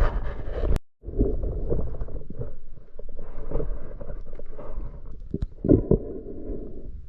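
Muffled underwater noise as heard through a diving camera's housing: a low rumbling wash of moving water with scattered clicks and knocks, cutting out briefly about a second in.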